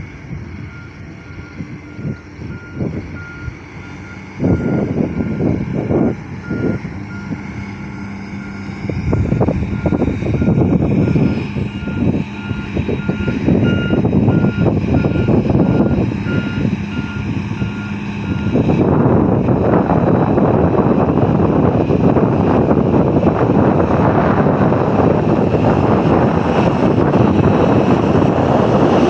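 A heavy machine's reversing alarm beeps repeatedly over the noise of a diesel engine working. The beeping stops a little past halfway, and the engine noise then grows louder and more even.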